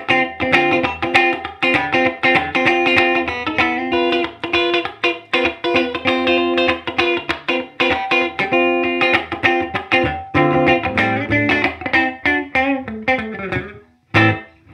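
Epiphone Les Paul Special electric guitar played through a Fender Deluxe Reverb amp with a G12Q speaker: a funk rhythm part of quick, choppy, percussive picked chords and single notes in a steady groove, with a short gap near the end.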